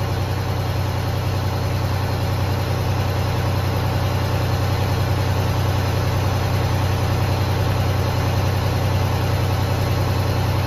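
Detroit DD15 inline-six diesel in a Freightliner Cascadia running steadily at a raised idle of about 1250 rpm, held there for a parked DPF regeneration.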